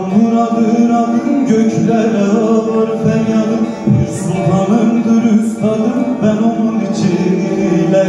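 A man singing a Turkish folk song in long, drawn-out ornamented notes without clear words, accompanying himself on a bağlama (long-necked saz).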